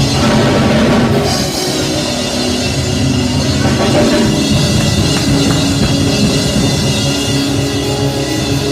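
Loud music with a driving drum beat over sustained keyboard or synth chords.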